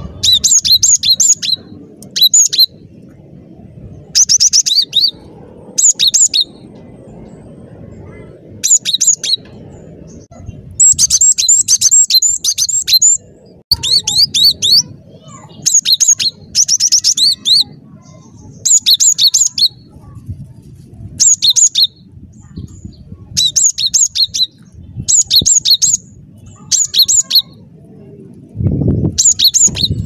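A cinereous tit (gelatik batu) singing vigorously. It gives loud, repeated bursts of quick high notes that alternate between two pitches, about one phrase every one to two seconds, over a faint low background hiss.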